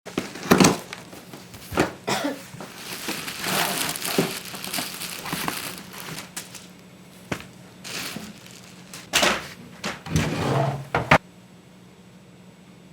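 Crinkling and crumpling of packaging being handled, in irregular bursts with sharp crackles, that stop abruptly about eleven seconds in.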